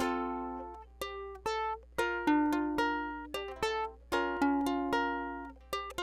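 Background music: a plucked string instrument picking single notes, each starting sharply and ringing away.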